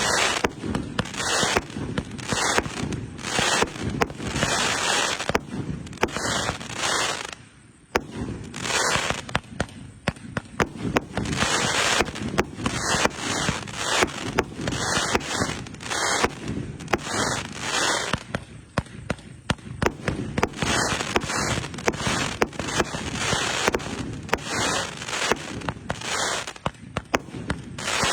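A 666-shot fireworks cake of 2-inch tubes firing continuously: rapid launch thumps and bursts, several a second, over a constant crackle, with a brief lull about seven and a half seconds in.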